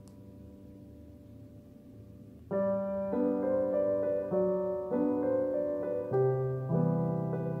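Background piano music: a soft held chord fading away, then about two and a half seconds in, slow piano notes enter, one after another, each ringing out.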